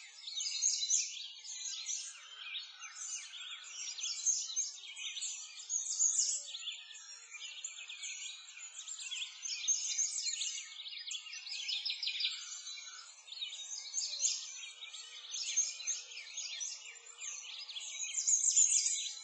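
Many birds chirping and twittering together in a dense, continuous chorus, all high-pitched.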